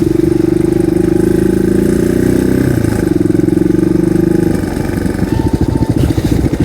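Single-cylinder dual-sport motorcycle engine running at steady revs, then dropping about four and a half seconds in to a slower, uneven idle with distinct firing pulses.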